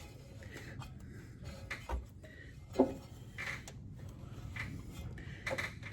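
Case 770 diesel engine being turned over slowly by hand at the fan, with scattered faint clicks and knocks from the moving parts and one sharper knock about three seconds in.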